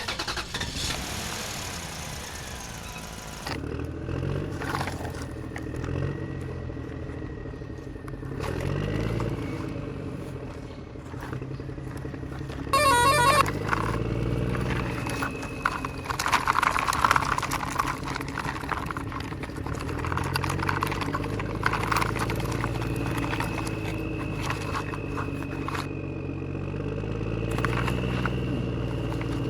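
Vehicle engine sounds rising and falling in pitch again and again as if revving, with horn-like honks, the loudest a short burst about halfway through.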